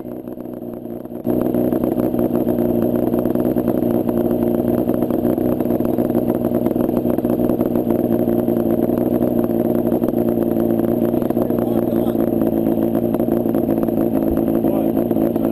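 Yamaha Banshee quad's two-stroke twin engine running close to the microphone. It turns much louder about a second in, then holds a steady, constant pitch.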